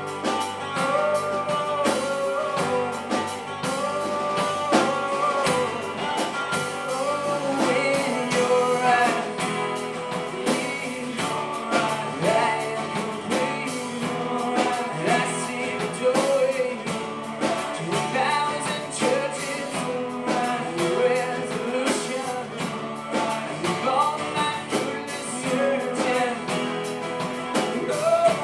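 Live band playing a song: acoustic guitars strummed over a drum kit, with a man singing the melody into a microphone.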